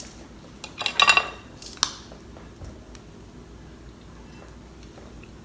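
Cutlery clinking against dishes: a short cluster of clinks about a second in and a single clink near the two-second mark.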